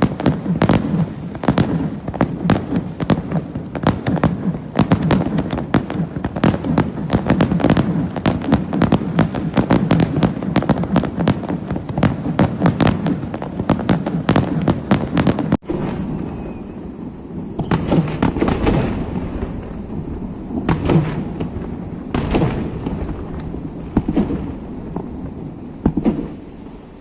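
Fireworks display: a fast, dense run of crackling bangs for about the first fifteen seconds. It breaks off abruptly, and slower single booms follow, a second or two apart.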